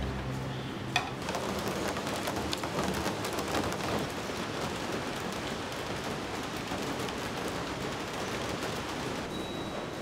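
Steady rain falling: an even hiss made of many fine drop ticks.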